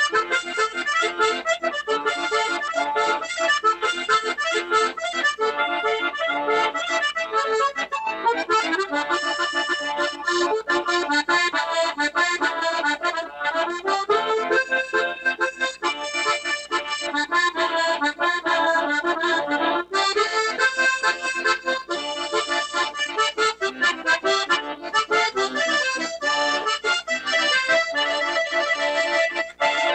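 Accordion playing a medley of tunes, with quick runs of notes over chords.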